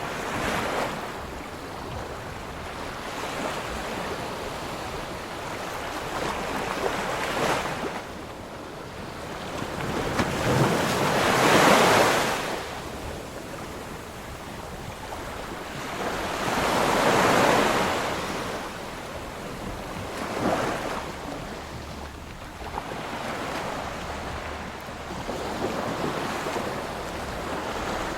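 Ocean waves washing in, a steady surf noise that swells and fades in slow surges every few seconds, the loudest about twelve and seventeen seconds in, with some wind on the microphone.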